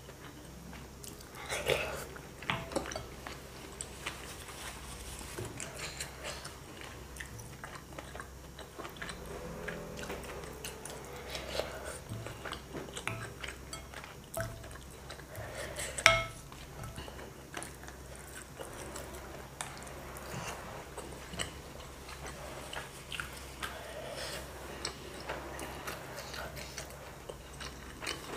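Close-up eating sounds: chewing and sipping of chicken noodles and broth, with a wooden spoon scraping and tapping in a ceramic bowl. Many small clicks throughout, with a sharp knock about 16 seconds in, the loudest, and another near 2 seconds in.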